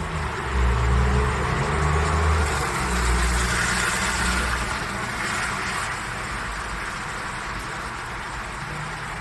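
Road vehicle running, a low engine rumble with steady noise over it, loudest in the first half and easing off after about five seconds.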